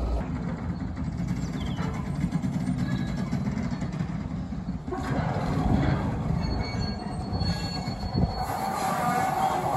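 Fowler diesel shunting locomotive running as it hauls a brake van along curving track: a steady low engine rumble with wheel noise and some squeal from the wheels on the curve.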